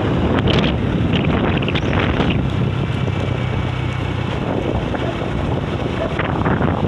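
Strong sea wind blowing hard against the microphone: a loud, continuous low rumble of wind noise with short crackling gusts.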